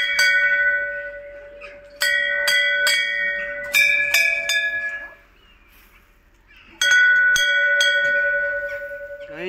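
Metal temple bell struck several times in quick clusters of two or three, each strike ringing on with a clear sustained tone. The ringing dies away about halfway through, then after a short quiet gap the bell is struck again and rings out.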